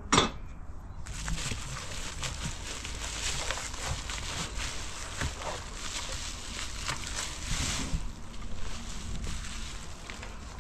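Bubble wrap and plastic packaging crinkling and rustling as a speaker is handled, lifted out of a cardboard box and unwrapped, after a single sharp knock right at the start.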